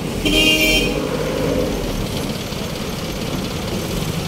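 A vehicle horn gives one short honk of about half a second, near the start, over the steady rumble of street traffic.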